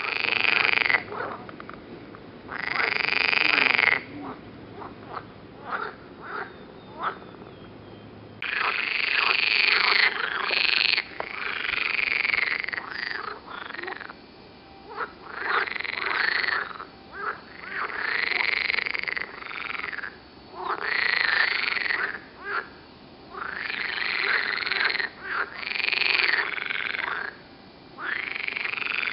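Water frogs (Pelophylax, marsh or edible frogs) croaking in chorus, call after call each about a second long, often overlapping. For a few seconds early on only short calls come, then the calls grow dense again.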